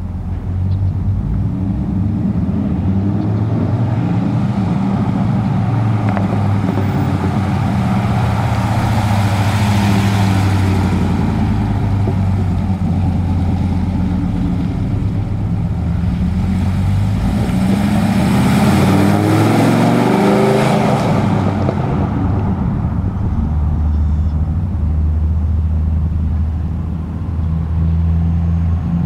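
Dodge Ram SRT-10's 8.3-litre Viper V10 engine running as the truck is driven around, its pitch rising in several pulls and loudest around ten and again around nineteen seconds in. It settles to a steady low rumble near the end.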